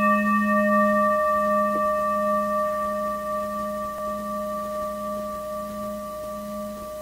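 A single low bell-like tone, struck just before, ringing on and slowly fading, with a slow pulsing waver in its low note.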